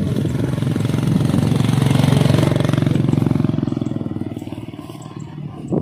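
Small motorbike engine, a scooter close by, running and getting louder to a peak about two seconds in, then fading away as it moves off. A short sharp knock right at the end.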